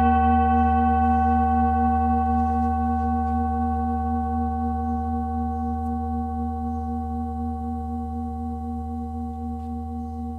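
Struck prayer bell ringing out after the strike, a long held tone with a gentle wavering that slowly fades.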